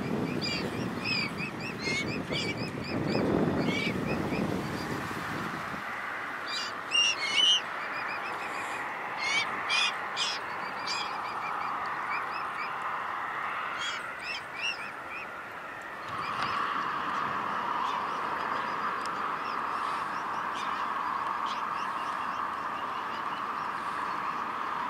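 Mute swan cygnets giving short, high peeping calls, in repeated runs through the first fifteen seconds or so, over a steady background hiss. Wind buffets the microphone in the first few seconds.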